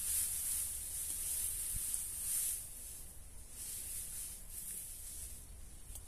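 Dry grass mulch rustling as it is grabbed and gathered by hand, loudest twice in the first couple of seconds, over a steady high hiss.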